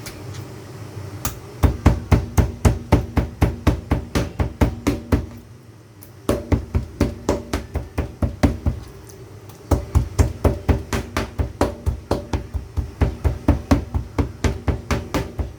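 Rapid, even chopping strokes on a cutting board, about four or five a second, in three runs with short pauses between.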